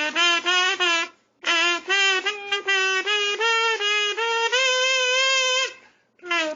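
A red Sing-A-Tina, a kazoo-type instrument, hummed into to play a tune in short buzzy notes. There is a brief break about a second in, then a held higher note, then a pause near the end.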